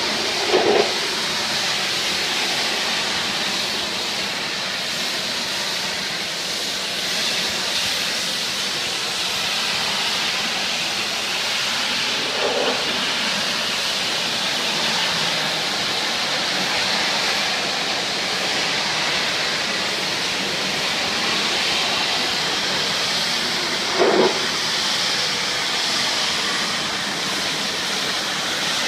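Steady hiss of a pressure-washer wand spraying a high-pressure jet of water onto wooden deck boards. Three times, about twelve seconds apart, a brief louder, lower-pitched swell rises over the hiss.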